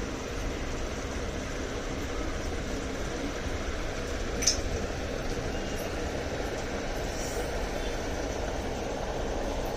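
Steady hum and rushing noise of running aquarium equipment, with one short click about halfway through.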